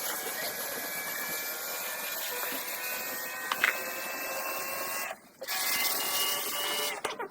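Washing machine running: a steady mechanical whir with hiss, dropping out briefly about five seconds in.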